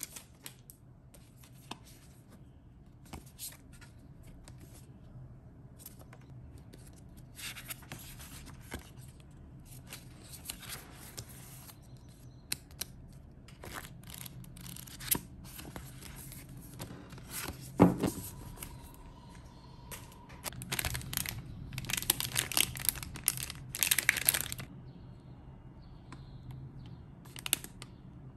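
Paper rustling as books are handled and their pages flipped, in short scattered bursts, with one sharp knock a little past the middle. Near the end, plastic wrapping crinkles.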